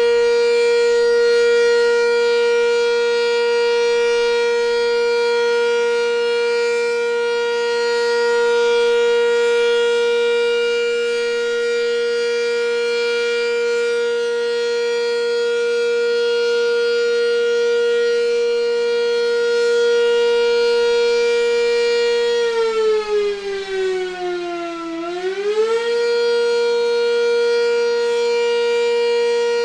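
Sentry 10V outdoor warning siren sounding its steady Alert tone, a loud held note. About three quarters of the way through, the pitch sags for a couple of seconds and then climbs back to the steady note.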